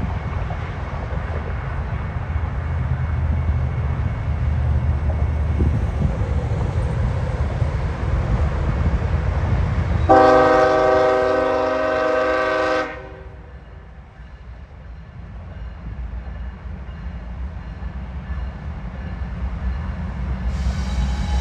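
Horn on the lead CSX diesel locomotive sounding one long blast about halfway through, which cuts off sharply, and starting a second blast near the end. Under it the steady low rumble of the two diesel locomotives hauling a loaded 90-car grain train slowly.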